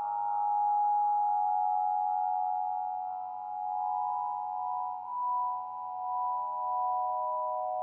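Ambient score music: a sustained drone of several steady high tones that swells and fades slowly, over a faint low pulse.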